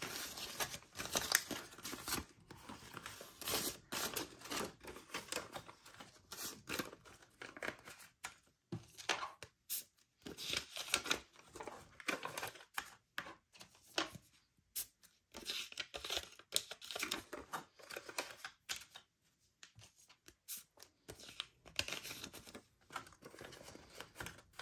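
Paper banknotes rustling and crinkling in short, irregular bursts as bills are flipped through, pulled out and laid onto stacks by hand.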